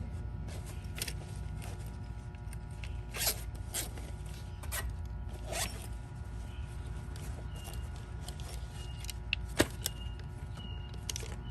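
Scattered clicks and scrapes of push-on wire terminals being worked off a heat pump compressor's common and run terminals and of meter probes being handled, over a steady electrical hum.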